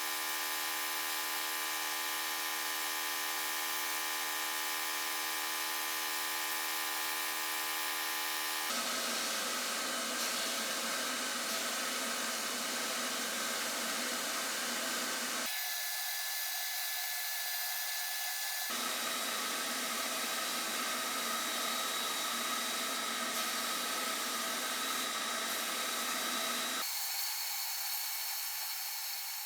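Small electric power tool running steadily, its pitch and tone changing abruptly about four times.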